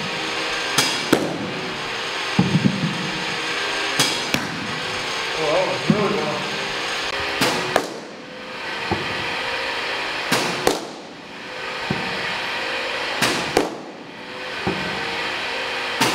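Baseballs smacking into a catcher's mitt during receiving drills: sharp pops about every three seconds, often two in quick succession, over a steady background hum.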